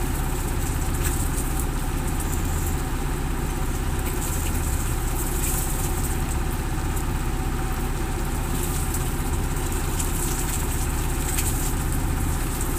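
Fishing boat's engine idling with a steady low hum, under a constant hiss of rain.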